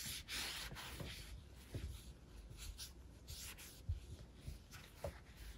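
Microfiber cloth rubbing across an iPad's glass screen in faint, irregular swishing strokes, buffing the screen dry after a wet wipe. There are a couple of light knocks in the second half.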